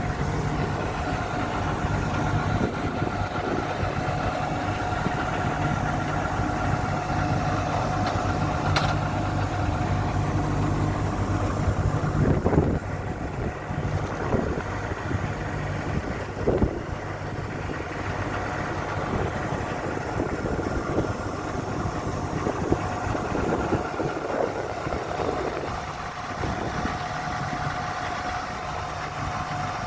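Diesel engine of heavy paving machinery running steadily at idle, with a steady higher whine over it; it drops a little in level about twelve seconds in.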